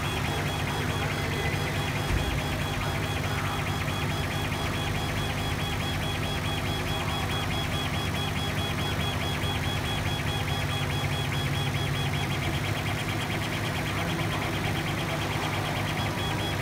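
Gweike LC1390N CO2 laser engraver running as it engraves plywood: the moving laser head's drive makes a rapid, even pulsing over a steady machine hum.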